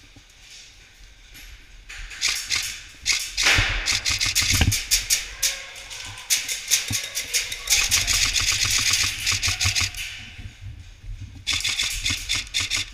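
Airsoft guns firing rapid full-auto strings of shots, heard as fast runs of sharp clicks. The firing starts about two seconds in, eases off for a moment near ten seconds, then starts again.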